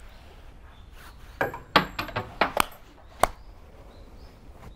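Coins tossed into a wooden shrine offering box, clinking and clattering over its slats in a quick run of sharp clicks, with one last click about a second later.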